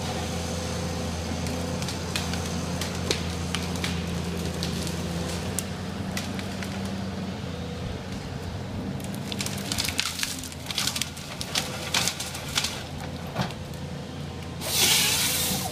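SANY SY235C excavator harvester's diesel engine running steadily while its SP 761LF harvesting head fells a pine. From about nine seconds in, branches crack and snap as the tree comes down and is fed through the head. Near the end comes a loud hiss lasting about a second, the head's saw cutting through the stem.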